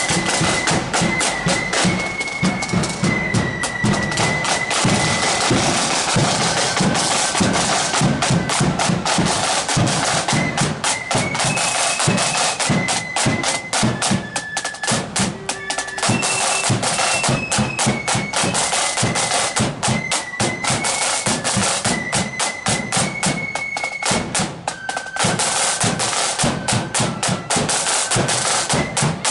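Marching flute band playing a tune: flutes in unison on a high stepping melody over rapid snare-drum rolls and bass-drum beats.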